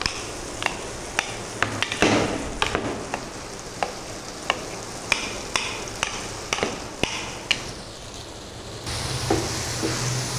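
Onion-tomato masala with green chillies frying in oil in a pan, bubbling with irregular sharp pops over a steady sizzle. Near the end a wooden spatula starts stirring it and the sizzle turns louder and fuller.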